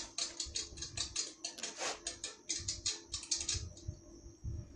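Rapid typewriter-style clacking, several strokes a second, used as a radio news-bulletin sound effect over a faint steady tone; it stops about three and a half seconds in.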